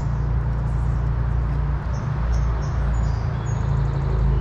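A motor vehicle's engine running with a low, steady rumble, with faint bird chirps above it.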